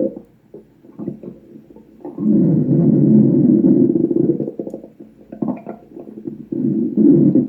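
Stomach growling: a long, loud low rumble from about two seconds in that lasts about two and a half seconds, then another starting about a second before the end, with faint scattered gurgles in between.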